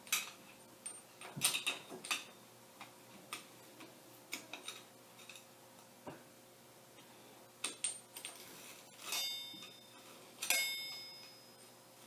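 Light metal clicks and scrapes of a small hand tool picking a retaining washer out of a Jeep Wrangler YJ's Dana 30 front hub, followed by two ringing metal clinks about nine and ten and a half seconds in.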